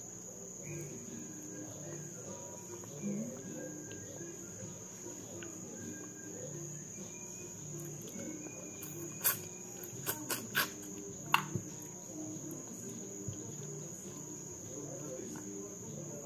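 Eating a fish head by hand: chewing with a cluster of sharp clicks between about nine and eleven seconds in, over a steady high-pitched trill.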